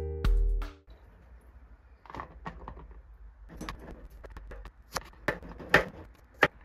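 Background music cuts off under a second in. Then come irregular light taps and knocks of a kitchen knife and peeled garlic cloves on a plastic cutting board, with a couple of sharper knocks near the end.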